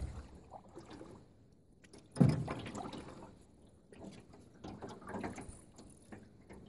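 Knocks and clatter against the side of a small boat: one loud hollow bump about two seconds in that dies away over about a second, then lighter scattered knocks, loud enough to scare fish away.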